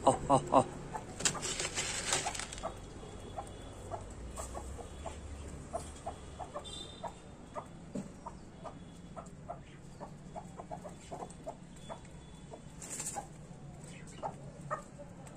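Desi hens clucking as they forage: a long run of short, soft clucks, a quick cluster at the start, then scattered clucks the rest of the way.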